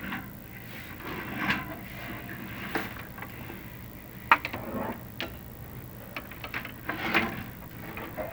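Irregular light clicks and knocks from a chimney inspection camera and its rod being worked down a clay-tile flue, the sharpest about four seconds in, over a low steady hum.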